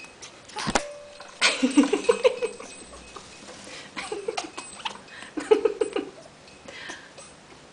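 African grey parrot making baby-like vocal sounds in three short bouts, about a second and a half in, around four seconds and near six seconds, mixed with small clicks. A single sharp click comes just before the first bout.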